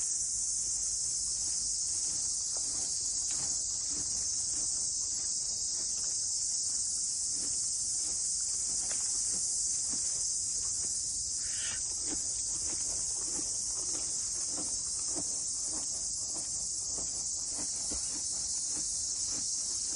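Steady, high-pitched insect chorus buzzing without a break, with faint scattered ticks underneath.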